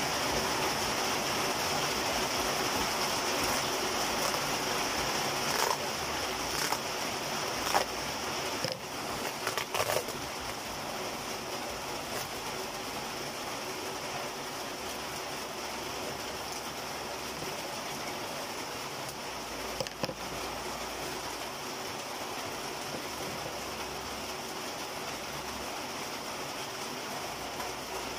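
Steady rain hiss on a corrugated metal roof. Between about six and ten seconds in, and once more around twenty, come a few sharp clicks and crinkles from scissors cutting through plastic wrap.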